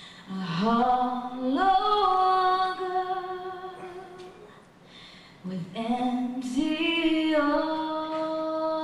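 A woman singing solo a cappella, with no instruments: two long sung lines, each sliding up into a held note, with a short gap for breath about five seconds in.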